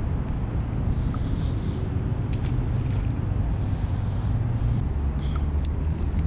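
Steady low rumble of wind buffeting the microphone, with a few faint clicks of handling.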